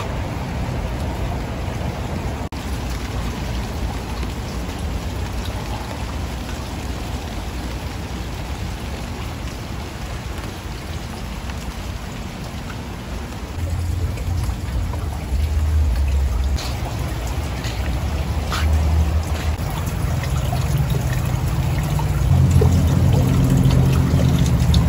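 Steady rain falling on garden foliage, with single drops tapping close by now and then. From about halfway through, a louder low rushing comes and goes and grows, loudest near the end.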